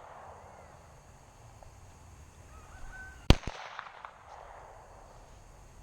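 A single 9mm Glock pistol shot about three seconds in: one sharp crack with a reverberating tail after it.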